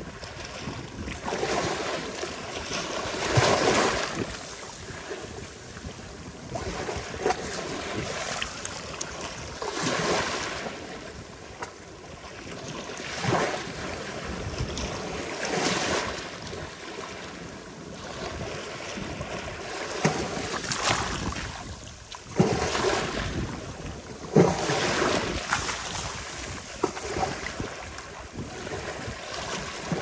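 Ocean waves breaking on a sandy beach: a steady wash of surf that swells every three to four seconds as each wave crashes and runs up the shore. The two loudest crashes come in the second half.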